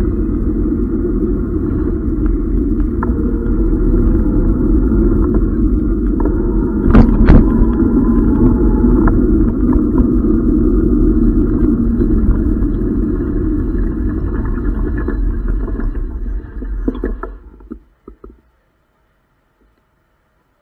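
Muffled steady rumble of a Tern HSD e-bike riding over a rough, wet road surface, heard through the camera's case. A few sharp knocks from a jolt come about seven seconds in. The rumble dies away as the bike comes to a stop, leaving near silence for the last few seconds.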